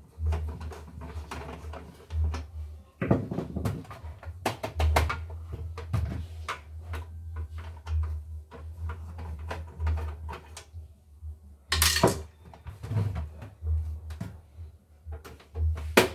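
Plastic housing of an embroidery machine being unscrewed and handled during disassembly: scattered clicks, knocks and rattles from screwdriver and casing, with two louder clatters, one about three-quarters through and one at the very end.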